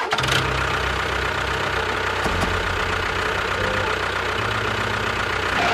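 Small electric motor of a DIY model running steadily with a dense whirring noise, starting abruptly.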